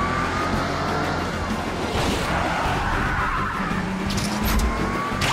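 Cartoon sports-car engine sound effect, a whine that rises in pitch as the car speeds up, once early and again near the end, with music underneath.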